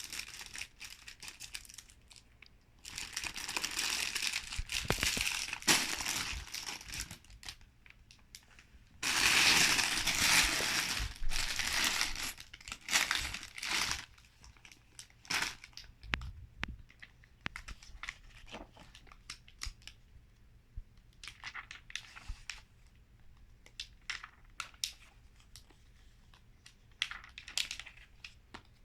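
Plastic bags of LEGO pieces being handled and crinkling, in bursts. The loudest stretch comes between about nine and fourteen seconds in, with smaller crinkles and light clicks after it.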